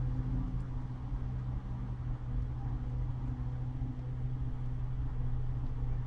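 Brastemp Vantage top-load HE washing machine running through its wash cycle: a steady low motor hum with a fainter tone that wavers in and out above it.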